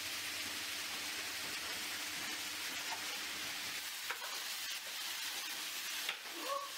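Diced chicken pieces sizzling steadily in a frying pan over a gas burner, with a couple of short knocks, about four and six seconds in.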